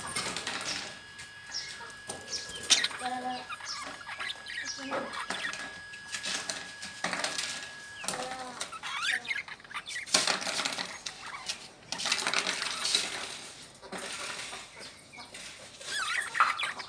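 Small caged pet birds chirping in short repeated calls, with wing flutters and light metallic clicks from the cage.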